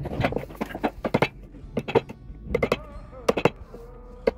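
Steel claw hammer striking the plastic handle of a wood chisel, about a dozen sharp strikes, several in quick pairs, as the chisel chops waste out of a lap joint in timber.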